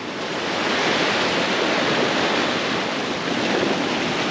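Sea waves surging and foaming over shoreline rocks: a steady rush of whitewater that builds during the first second.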